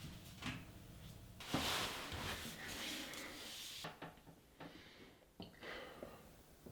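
A person giving a run of deliberate coughs, lasting about two seconds and stopping abruptly, to let whoever is approaching know the toilet is occupied. A few soft clicks follow.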